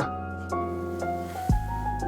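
Background music: a gentle instrumental with notes stepping up in pitch over a steady bass, and a sharp beat hit about one and a half seconds in.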